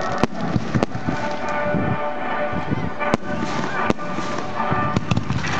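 Aerial firework shells bursting: about six sharp bangs, two of them close together near the end.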